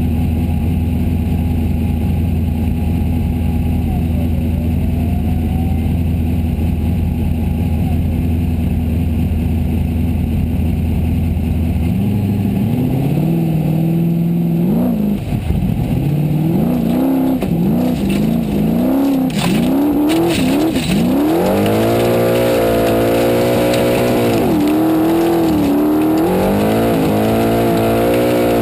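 Formula Offroad race car's engine heard from inside the cockpit. It idles steadily at first, then about twelve seconds in it revs up and down hard as the car climbs a steep hill. Near the end it holds high revs with a few brief dips.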